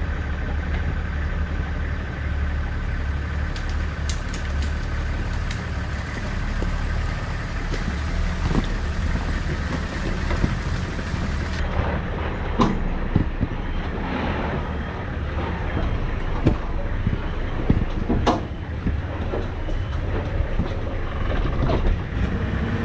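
4x4 off-road vehicle's engine running at low speed, a steady deep rumble, with occasional knocks and clunks from the vehicle crawling over rough trail.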